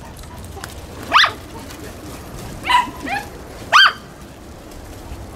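A dog giving short, high-pitched barks, four over about three seconds.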